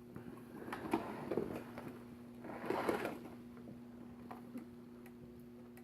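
Light clicks and short rattling scuffs, as of the plastic RC truck being handled and turned, loudest about a second in and again near three seconds in, over a steady low hum.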